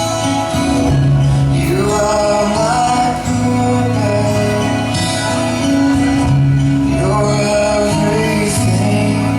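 Music: a song with a singing voice over sustained bass notes and accompaniment.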